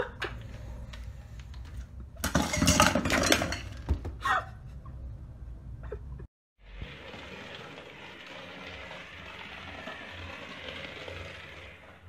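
A cat's food bowl clattering on a hard floor with dry kibble spilling and scattering, for about a second and a half from two seconds in, then a shorter clink about four seconds in. After a sudden cut, a steady hiss.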